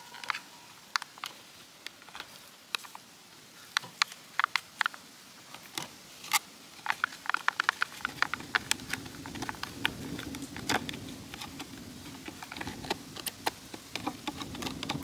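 Metal fork scraping and tapping inside a small plastic tub, many sharp irregular clicks as food is dug out. A low steady rumble comes in about halfway through.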